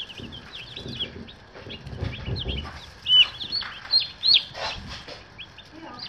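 A brood of day-old meat chicks peeping: many short, high chirps overlapping one another, with a few louder peeps about three to four and a half seconds in.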